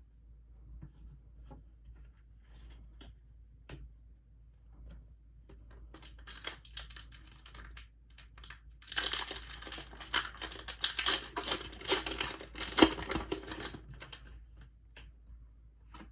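Crinkly wrapping on Pokémon trading card packaging being torn open and crumpled by hand. It is loudest from about nine to thirteen seconds, after several seconds of light handling clicks.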